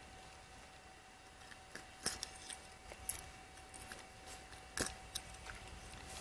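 Scattered sharp metallic clicks and light scraping from a metal forceps being worked into a pumpkinseed sunfish's mouth to remove the hook.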